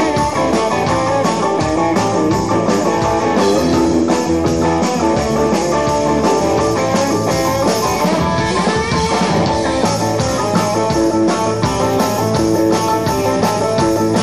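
Live band playing rock and roll, with a guitar lead to the fore over bass and drums; the guitar notes bend in pitch.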